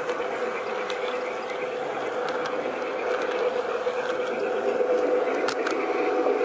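G-scale model locomotive's electric motor and gears whirring with a steady buzzing hum as the train runs, with a few sharp clicks in the second half. It gets a little louder in the second half.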